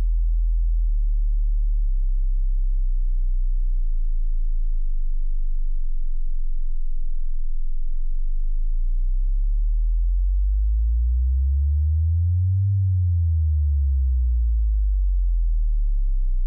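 Deep, pure electronic tones that change pitch in steps about once a second. In the second half they glide slowly up about an octave and back down.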